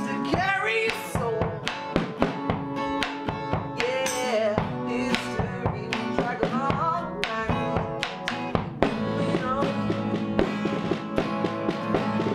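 A small band playing: strummed acoustic guitar and electric guitar under frequent hand-drum strikes, with a singer's voice over the first half or so.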